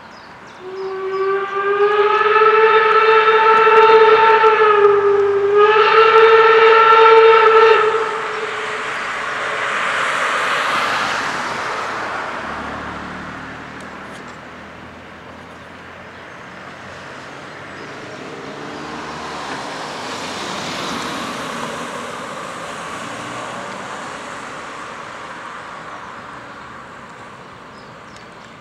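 Steam locomotive whistle sounding two long blasts, the first about four seconds and the second shorter, each sliding up slightly in pitch at the start. Afterwards the quieter noise of the train and road traffic passing swells and fades twice.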